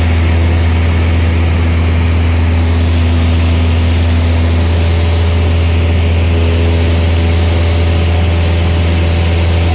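Piper Dakota's six-cylinder engine and propeller heard from inside the cabin in flight: a loud, steady low drone with a hiss of air noise, unchanging throughout.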